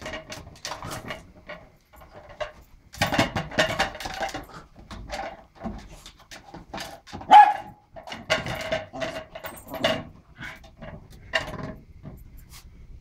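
Small white terrier barking repeatedly in short, excited bursts while attacking an empty plastic hamster ball, the loudest bark about seven seconds in, with short knocks between the barks.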